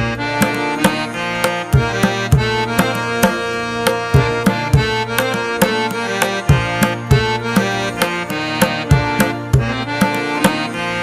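Instrumental background music: held melody notes over a steady rhythm of drum strikes.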